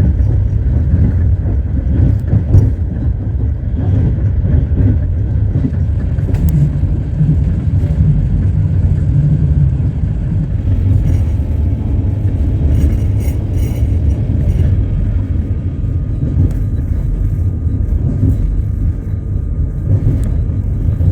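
Passenger train running along the track, heard from inside the carriage: a steady low rumble of wheels on rails, with a few faint knocks.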